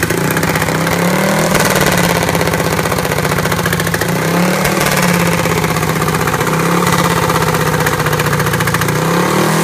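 Junior dragster's single-cylinder engine running loud and fast, blipped up in pitch briefly three times and settling back each time.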